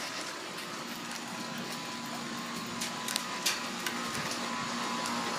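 York central air conditioner's outdoor unit running with a steady mechanical hum, growing gradually louder toward the end.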